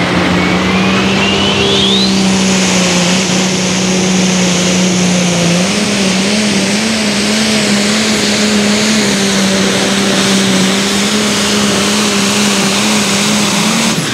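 International limited pro stock pulling tractor's turbocharged diesel engine running hard under full load while pulling the sled. A whistle rises in pitch over the first two seconds, then the engine note holds steady with a slight wavering midway, and it drops away right at the end.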